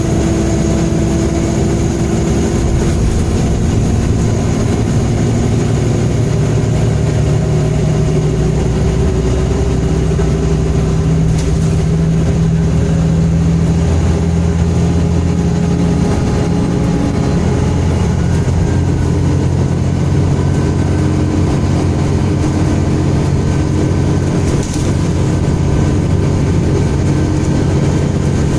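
MAN Enviro 300 single-deck bus's diesel engine running steadily under way, with faint whines that rise in pitch through the second half.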